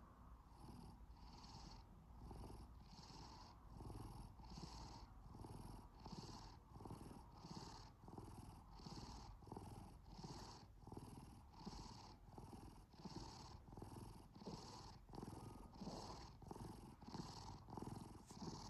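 Domestic cat purring softly and steadily, pulsing in time with its breathing a little more than once a second.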